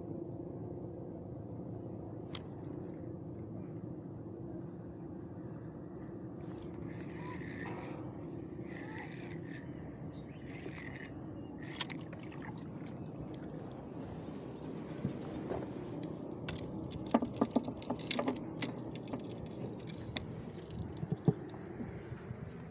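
A hooked fish splashing at the water's surface in several short surges while it is reeled in on a spinning rod, over a steady low hum. Near the end comes a run of sharp knocks and clatter on the boat's wooden floorboards.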